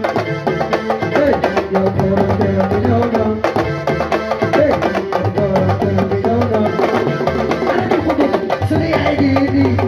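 Loud dance music driven by fast, steady drumming over a low bass line.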